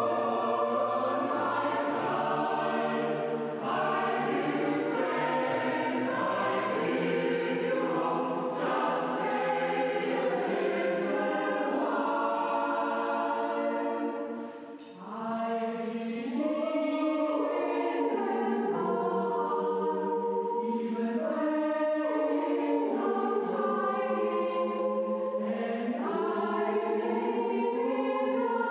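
Mixed choir of men and women singing together in a church, the voices held in long chords. There is a short break between phrases about halfway through.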